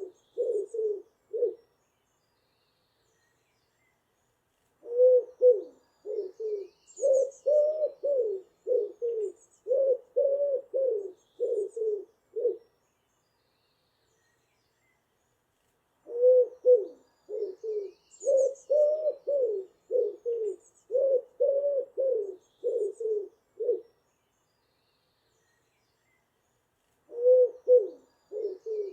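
Pigeon cooing in repeated phrases, each a run of soft, low notes that bend up and down in pitch, lasting seven to eight seconds with silent gaps of about three to four seconds between them. Faint high chirps from other birds are heard now and then.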